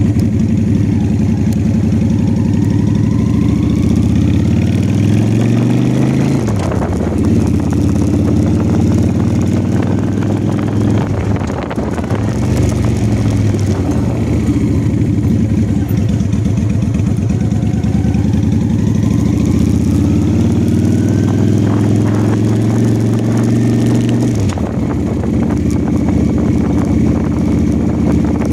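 Honda Shadow V-twin motorcycle engine running and being revved up twice, each time dropping back sharply. A whine rises and falls in pitch along with the revs.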